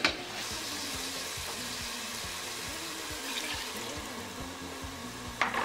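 Meat broth poured from a measuring cup into a pot of sautéed vegetables and egusi: a steady hiss of pouring liquid and sizzling, with a short knock near the end.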